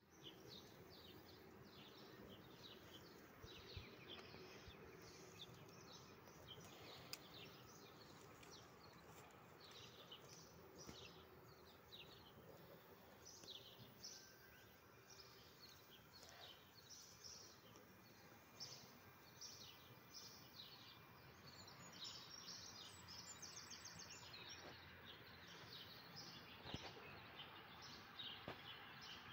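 Faint outdoor ambience with many small birds chirping in quick, repeated short calls.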